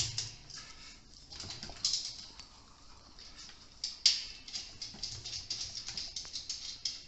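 Flange nuts and metal antenna brackets being handled and fitted onto studs: irregular light metallic clicks and clinks, with two sharper clinks about two and four seconds in.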